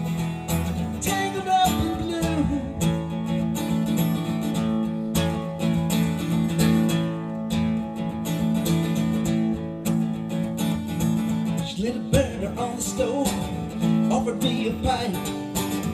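Acoustic guitar strummed in steady chords as an instrumental break in a live solo song, amplified through a PA, with a wavering melody line over it in the last few seconds.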